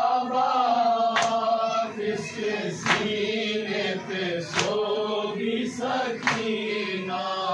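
Men chanting a nauha, a Shia mourning lament, together as a group, with four sharp chest-beating slaps (matam) falling in an even beat about every 1.7 seconds.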